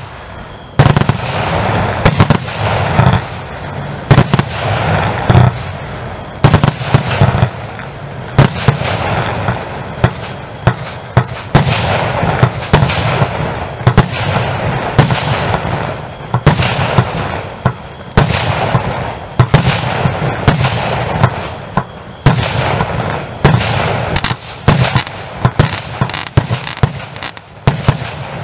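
A 240-shot fireworks compound box firing continuously: many sharp, loud bangs in quick, irregular succession over a steady dense rush of noise, without pause.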